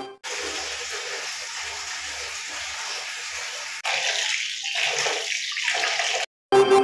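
Water running from a tap into a plastic bucket, a steady splashing hiss that gets louder about four seconds in and cuts off near the end.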